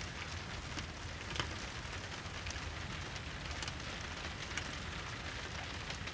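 Steady rain on a small sailboat's cabin top, heard from inside the cabin as an even hiss with scattered faint ticks of drops.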